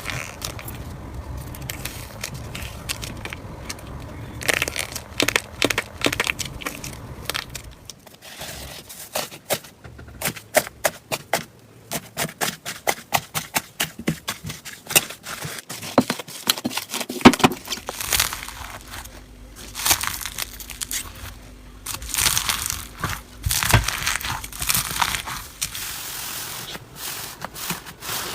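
Slime being squeezed and pressed by hand, crackling and popping. There is a run of quick, sharp pops through the middle, and denser crackling toward the end.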